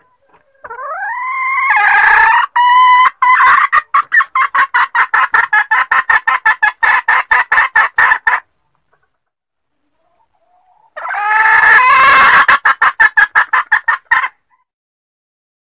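A red junglefowl hen calling: a rising note that breaks into a fast run of clucks, about four or five a second, lasting several seconds. After a short silence comes a second, shorter bout. This is the hen's call that draws males.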